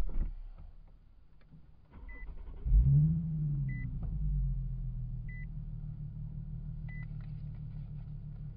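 A Nissan 370Z's 3.7-litre V6 starting. A short crank about two seconds in, then the engine catches with a quick rev flare that rises and falls and settles into a steady idle. A short high beep sounds four times, about every second and a half.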